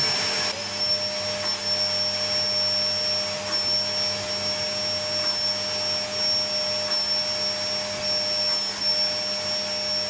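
Canister vacuum cleaner, rigged as a wet vacuum through a glass-jar liquid trap, running steadily as its small nozzle sucks cleaning liquid out of damp sofa fabric. It gives a steady rushing hiss with a high whine whose pitch wavers slightly.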